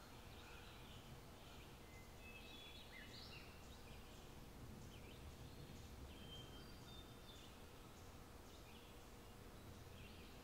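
Faint outdoor ambience with birdsong: scattered short chirps and whistles from birds over a low background hush.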